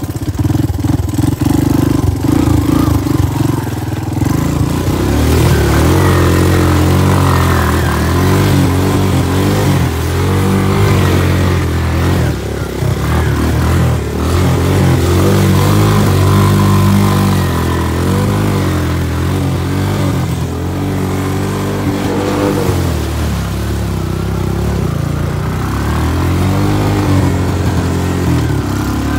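Honda 250 off-road engine revving up and down as it is ridden through mud, its pitch rising and falling over and over with the throttle.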